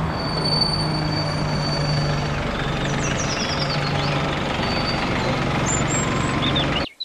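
Single-deck diesel bus driving past, its engine a steady low hum over road noise, with a few faint high squeaks near the middle. The sound cuts off abruptly just before the end.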